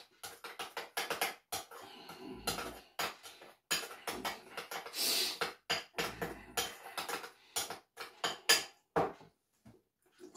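A spoon clinking and scraping against a bowl in a quick, irregular run of knocks and scrapes, stirring salt into homemade mayonnaise.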